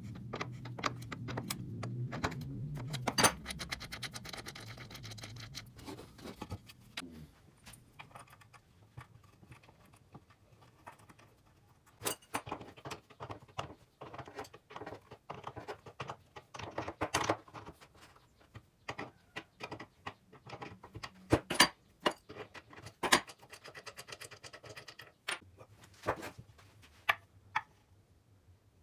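Irregular clicks, knocks and small rattles of parts and tools being handled on a workbench, with a brief low hum in the first few seconds.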